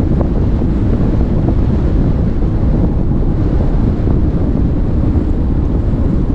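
Steady, loud wind buffeting the microphone of a sailboat under way in a fresh breeze, with the rush of choppy water along the hull beneath it.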